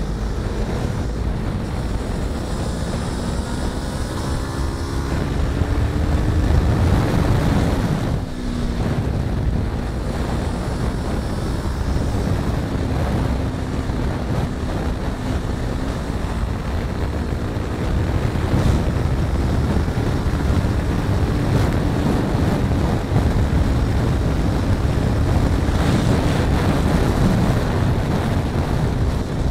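Heavy wind buffeting on the microphone over a first-generation Yamaha R3's parallel-twin engine running at road speed. The revs climb a few seconds in, then hold fairly steady.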